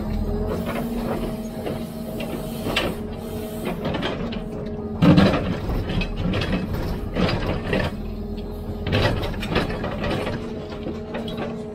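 Hidromek 102B backhoe loader's diesel engine running steadily, with repeated metallic clanks and rattles from the working machine; the loudest knock comes about five seconds in and another about nine seconds in.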